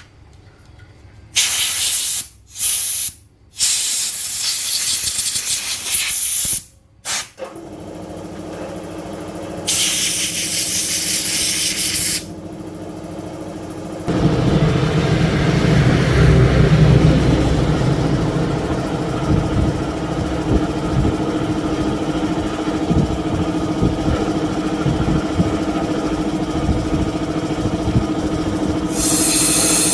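Several bursts of hissing air, like a compressed-air blow gun cleaning parts, in the first half. A steady motor hum starts partway through and becomes much louder about halfway in, then runs on steadily.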